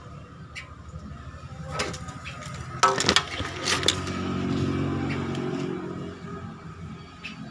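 A few knocks and clatter, then an electric circular saw's motor running with a steady hum for about three seconds and easing off near the end.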